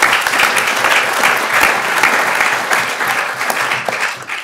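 Audience applauding, the clapping tailing off near the end.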